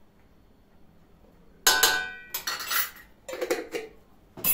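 Cutlery and dishes clinking: a sharp, ringing clink about a second and a half in, then several shorter clatters.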